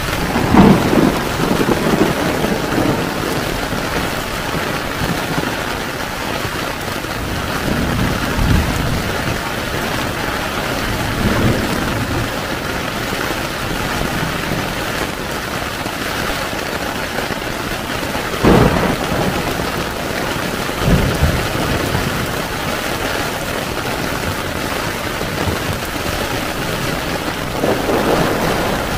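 Heavy rain falling on a tent, a steady dense hiss, with several low rumbles rising through it, the strongest just after the start and about two-thirds of the way through.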